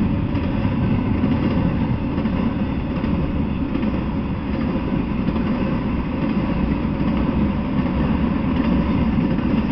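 Intermodal freight train rolling steadily past: a continuous low noise of steel wheels running on the rails under container and trailer cars.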